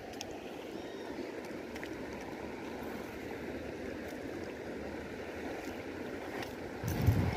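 Shallow stream running over rocks: a steady rush of water, with a short low thump near the end.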